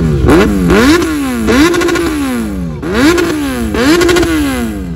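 Kawasaki Z900's inline-four engine with an Akrapovic slip-on exhaust being revved while parked. The throttle is blipped five times: each time the note rises quickly, holds briefly, then falls slowly back.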